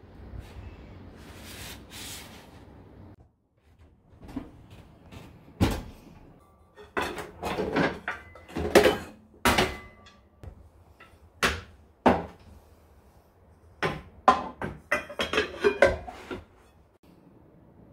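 Paper bags rustling, then a string of knocks and clatters as food packages, plastic containers and pans are moved in and out of a pull-out kitchen drawer, a few of them ringing briefly.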